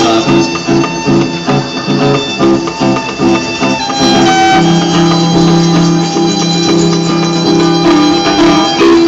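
Live busker music with strummed plucked strings over a steady rhythm. About four seconds in, the quick chopped chords give way to longer held notes.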